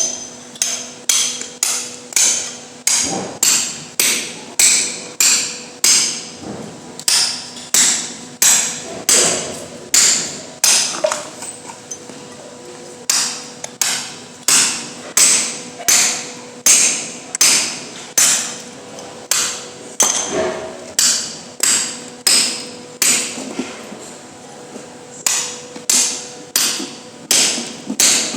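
Steady hammering: a long run of sharp, ringing strikes, a little under two a second, with a brief pause near the middle.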